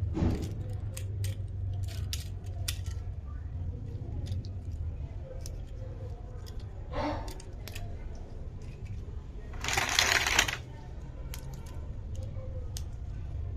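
Small hard plastic toys and packaging being handled: scattered light clicks and rattles, with a louder rustling scrape lasting just under a second about ten seconds in, over a steady low hum.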